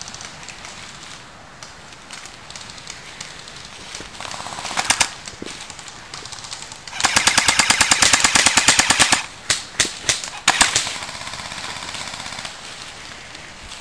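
Airsoft guns firing on full auto: a short burst, then a longer rapid burst of about two seconds, followed by a few single shots.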